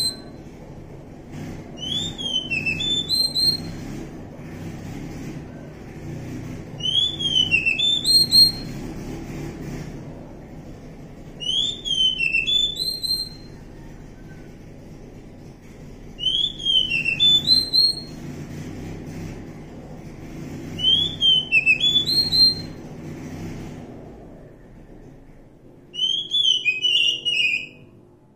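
Oriental magpie-robin singing: six short phrases of quick, high whistled notes, each rising and falling, repeated about every four to five seconds over a steady low background rumble that fades out near the end.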